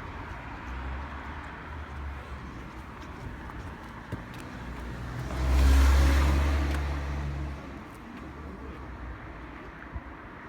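A road vehicle, most likely a car, passing close by. It swells to a peak about five and a half seconds in and fades away within two seconds, over low steady traffic noise.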